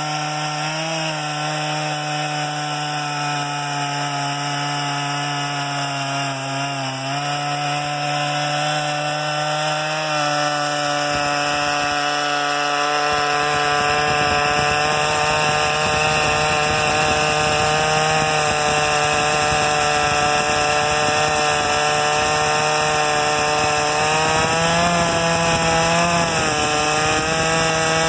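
Gas chainsaw on a homemade chainsaw mill running at high throttle, ripping lengthwise through a red pine log. The engine note holds steady, dipping briefly in pitch a few times, and the cutting noise grows fuller about halfway through.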